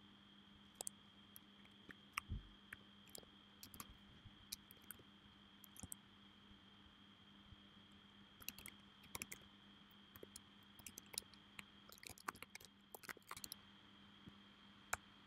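Faint clicking of computer keyboard keys in irregular bursts, over a faint steady hum.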